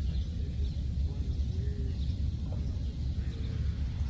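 Wind rumbling and buffeting on the microphone outdoors, with a few faint high chirps over it.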